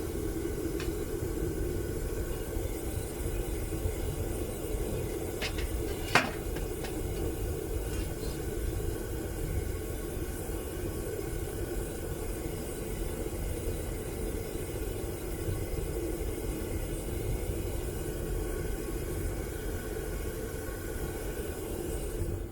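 Homemade propane furnace burner running with a steady roar while melting brass. A single sharp knock sounds about six seconds in.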